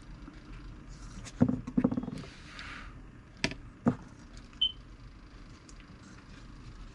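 Handling noises at a workbench: a cluster of clicks and knocks, a brief rustle, then two sharper knocks as a plastic motorcycle speedometer housing is moved and set down on the wooden bench. A short high chirp follows near the middle.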